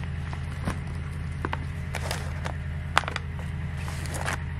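Rustling plastic sleeves and light clicks as LiPo battery packs are handled in a roll-up battery bag, over a steady low hum.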